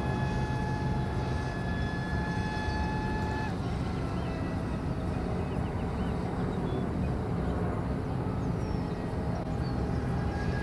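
Steady low rumble of distant vehicle noise, with a steady whine that cuts off about three and a half seconds in and comes back near the end, and a few faint high chirps in between.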